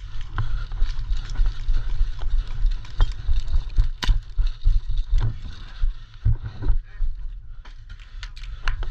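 Heavy low rumble of wind or handling noise on the microphone, with irregular sharp clicks and snaps scattered through it.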